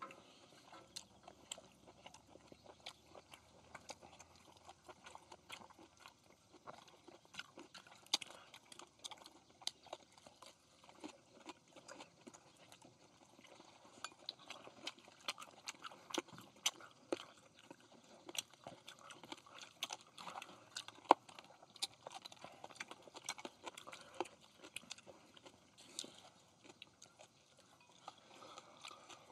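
Several people eating grilled pork belly: chewing and mouth sounds with irregular clicks and taps of utensils throughout, the loudest a sharp tap about 21 seconds in.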